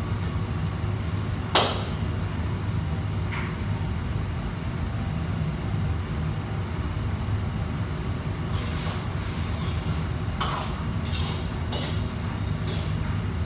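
Metal cooking utensils striking a wok and pans: one sharp clang about one and a half seconds in, then several lighter clinks and clatters near the end, over a steady low kitchen rumble.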